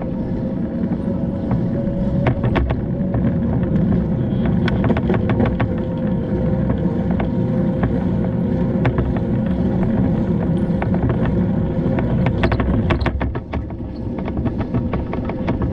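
Continuous road and tyre rumble of a bicycle being ridden, with a steady hum under it and frequent rattling clicks from the bike over the road surface.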